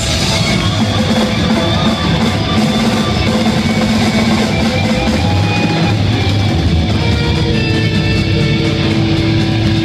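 Live death metal band playing at full volume: distorted electric guitars with held notes over a pounding drum kit.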